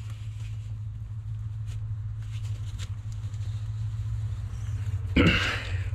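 A man's short, forceful grunt of effort about five seconds in, over a steady low hum, as he strains with a strap wrench to break a stuck spin-on fuel water separator filter loose.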